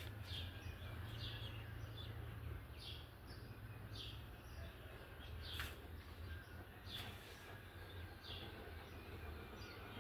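Faint bird chirping: short, sharply falling high notes repeated about once a second, over a low steady hum.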